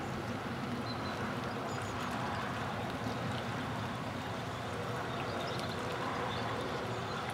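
Steady outdoor rush of wind and small waves lapping on a reservoir shore, with no distinct single event.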